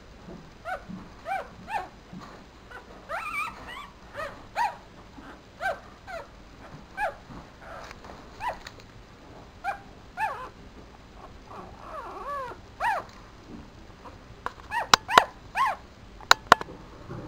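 Newborn papillon puppy squeaking and whimpering: short, high-pitched cries that bend up and down in pitch, one every half second to a second. A few sharp clicks stand out near the end.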